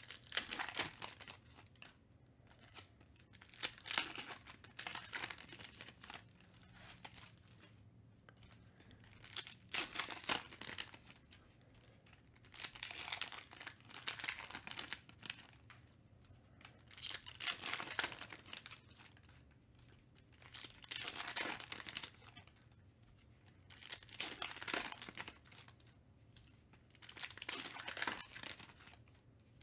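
Foil trading-card pack wrappers being torn open and crinkled by hand. The sound comes in bursts every few seconds.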